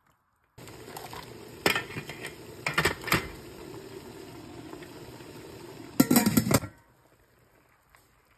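Metal clanks of a stainless steel steamer pot and its lid as lobsters are handled in it, over a steady hiss. Clanks come about a second in and again around three seconds. A louder cluster of clanks comes near the end, then the hiss stops.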